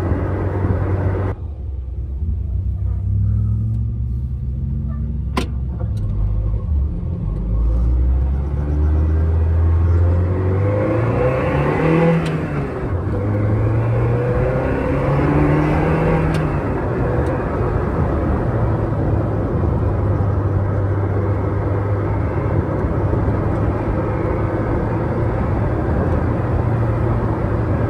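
Renault Sport Spider's mid-mounted 2.0-litre four-cylinder engine accelerating through the gears, its pitch rising three times with shifts between. It then settles into a steady cruise, heard with wind and road noise in the open cockpit.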